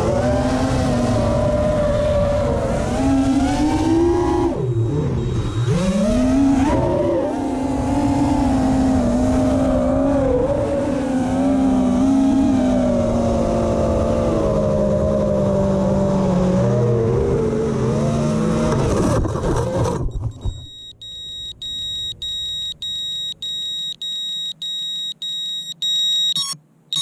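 FPV quadcopter's brushless motors whining under throttle, the pitch swooping down sharply and back up about five seconds in, then wavering with the stick. The motors stop about 20 seconds in, followed by evenly repeating high electronic beeps, a little under two a second, ending in one longer beep.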